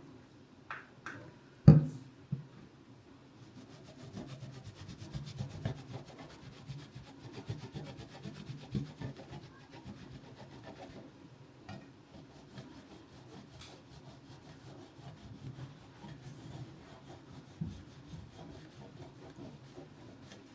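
Irregular rubbing or scrubbing strokes, with one sharp knock about two seconds in and a few fainter knocks later.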